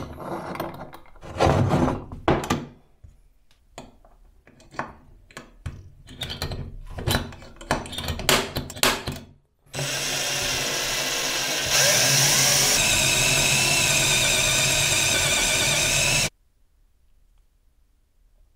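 Metal clicks and knocks as a hex nut is set and clamped in a small steel drill-press vise. About ten seconds in an electric drill starts and runs steadily, getting louder with a high whine about two seconds later as the bit cuts into the nut, then cuts off suddenly.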